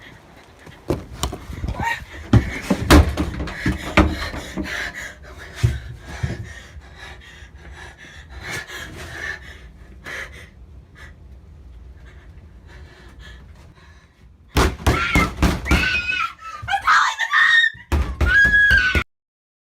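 Repeated heavy thuds and bangs, then a woman's frightened, high cries for the last few seconds.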